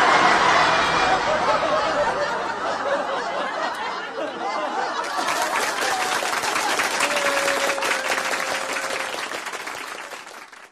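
Crowd laughing and chattering, breaking into applause about halfway through; the sound fades out near the end.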